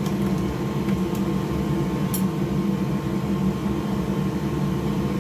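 Steady mechanical hum of a fan running, with a couple of faint light clicks about one and two seconds in.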